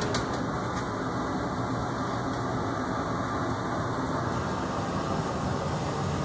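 Glory hole's burner running with a steady rushing noise while a glass bubble on a blowpipe is reheated in it.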